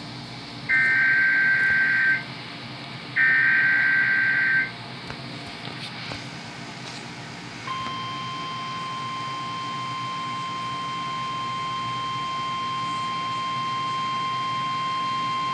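Emergency Alert System signal for a severe thunderstorm warning: two buzzing bursts of SAME header data tones, each about a second and a half long, then about eight seconds in a long, steady single-pitch attention tone begins.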